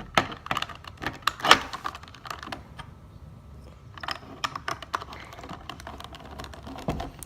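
Rubik's Cube pieces clicking and clattering as the cube is handled during reassembly: quick runs of light plastic clicks, with a short lull about three seconds in.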